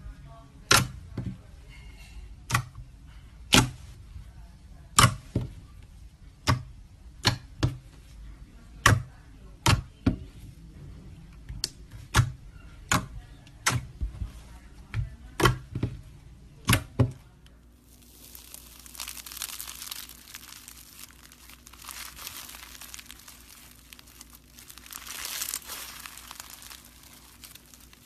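Slime being handled: sharp pops and clicks, roughly one a second, from air pockets squeezed out of the slime. After that comes a steady crinkly crackling as it is stretched and worked.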